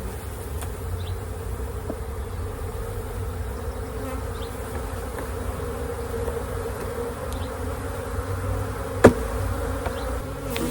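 A mass of honey bees buzzing steadily in a dense hum, from package bees loose around an open hive. One sharp knock about nine seconds in.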